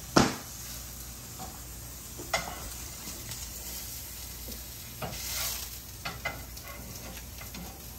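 Breakfast food sizzling steadily in a frying pan. A sharp knock comes just after the start, and a few lighter knocks and clinks follow later, with a brief louder flare of sizzle about halfway through.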